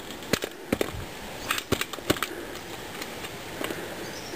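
Irregular metal clinks and knocks as the parts of a home-built charcoal gas generator, a Caterpillar air filter housing, are fitted together by hand. Most of the knocks fall in the first two seconds, with fewer after.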